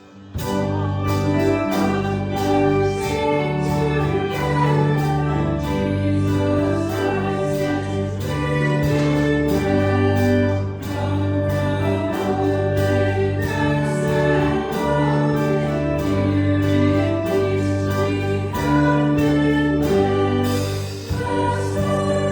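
Church hymn sung by many voices with instrumental accompaniment, sustained chords moving steadily, resuming after a brief pause right at the start.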